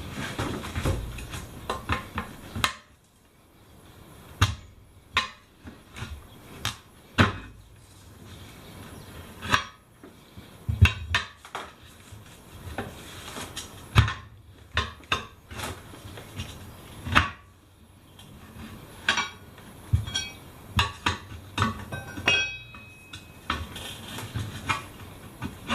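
Tyre levers knocking, clinking and scraping against a rusty steel wheel rim while prying the stiff bead of an old tubeless tyre off the rim, in irregular metallic strikes with short ringing.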